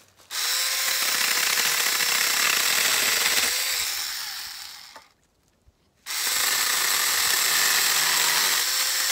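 Small handheld chainsaw cutting a branch into lengths, run twice. The motor whines steadily for about three seconds, then winds down, and after about a second's pause it starts again.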